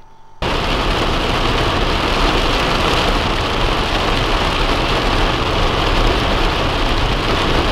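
Heavy rain falling on the roof and windscreen of a moving car, heard from inside the cabin over the engine and road noise. It is a loud, steady hiss with a low rumble under it, and it starts suddenly about half a second in.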